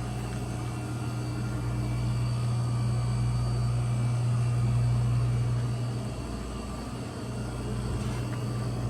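A steady low mechanical hum with a fixed pitch, swelling a little around the middle and easing off later.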